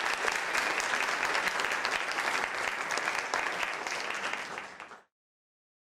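A group of people clapping, a dense patter of many hands. It tails off and cuts off abruptly about five seconds in.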